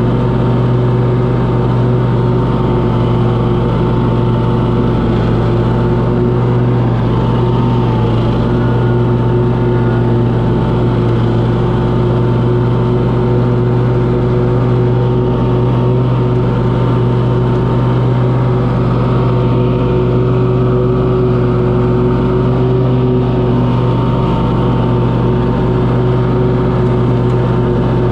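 Snapper Pro mower's engine running steadily at an even speed, with a constant hum that barely changes pitch.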